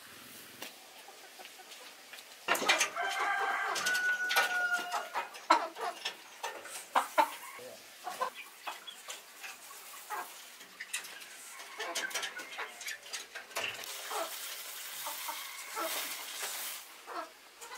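Chickens clucking and calling, starting about two and a half seconds in, with scattered taps and clatter. Near the end, grain feed is poured from a metal bowl into a wooden feed trough.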